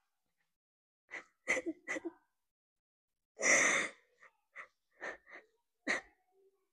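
A woman crying: short sobbing breaths and sniffles, with one longer, louder breath about three and a half seconds in.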